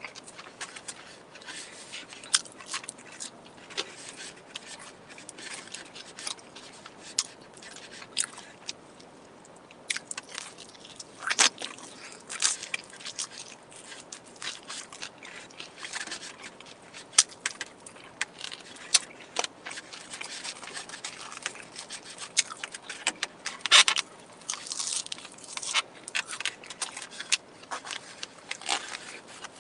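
Close-miked eating of a lettuce-topped cheeseburger: irregular bites, crunches and wet mouth clicks as it is chewed, with scattered sharper clicks, the loudest about two-thirds of the way through.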